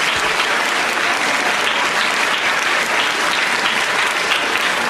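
Studio audience applauding steadily, a dense even clatter of clapping.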